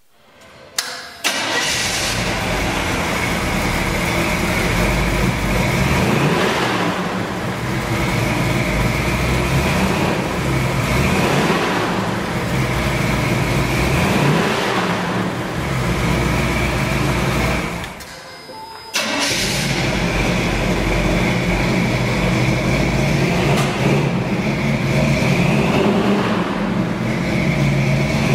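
The 1985 Chevrolet truck's engine cranks and catches about a second in, then runs with its speed rising and falling repeatedly. The sound drops out briefly about two-thirds of the way through, then the engine is heard running and rising and falling again.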